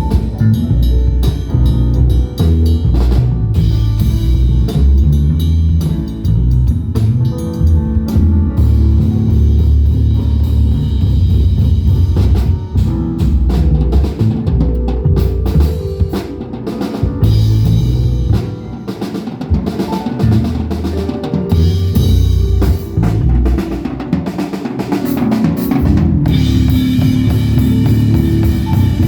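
Live band music during a sound check: a drum kit with kick drum and snare drives the beat over bass and other instruments.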